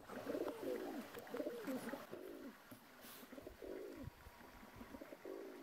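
A flock of pigeons cooing: low coos that rise and fall, overlapping in the first two seconds, then thinning out to a few single coos.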